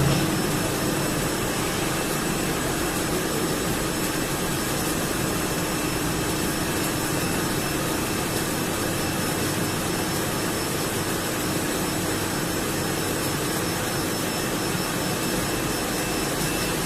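H-beam 3-in-1 assembly, welding and straightening machine running during a test weld: a steady, even drone with a constant hum.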